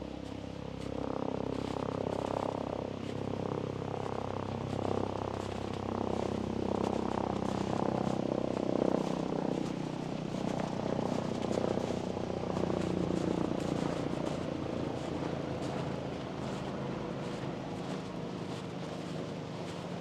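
Engine of a motor vehicle going past, swelling over the first few seconds, loudest in the middle and slowly fading toward the end.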